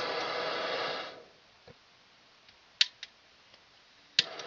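Gas soldering torch: a burst of hissing gas for about a second, then two sharp clicks of the igniter, and after the second click a fainter steady hiss starts as the torch is lit.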